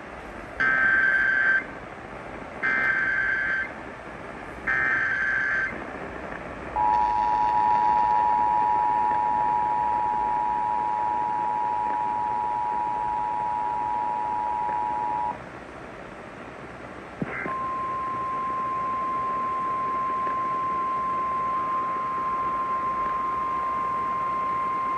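Emergency Alert System activation heard over AM radio. Three roughly one-second bursts of SAME digital header data come first, then the two-tone EAS attention signal holds for about eight seconds. After a short gap, a single steady alarm tone, the National Weather Service warning tone, begins, heralding a flash flood warning.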